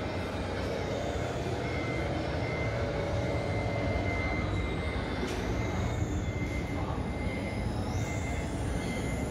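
Electric motor whine from a Traxxas TRX-4 RC crawler, its pitch shifting up and down with the throttle and rising near the end, over steady background noise.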